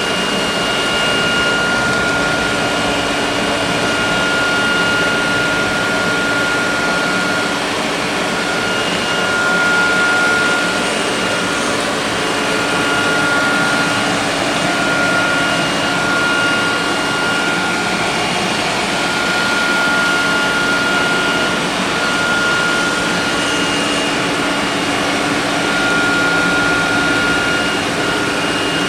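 Electrolux robot vacuum cleaner running: a steady rushing fan noise with a low hum and a high whine that keeps cutting out and coming back.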